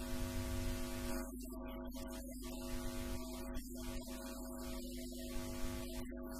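A steady electrical hum with a string of even overtones, over hiss, with music underneath.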